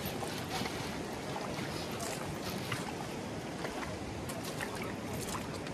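Steady rushing water, with scattered short sharp ticks and splashes over it.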